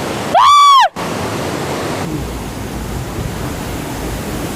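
Steady rushing of a waterfall. Near the start it is broken by a short, loud, high tone that rises and falls in pitch and ends abruptly after about half a second.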